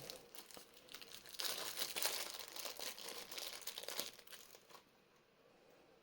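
Crinkling and rustling with small clicks as a lavalier microphone, its cable and packaging are handled, dying away after about five seconds.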